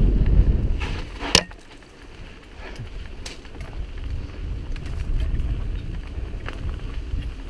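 Wind buffeting the camera microphone while riding a mountain bike, a loud low rumble that eases off about a second and a half in, just after a sharp click. It continues as a quieter rumble with a few light clicks.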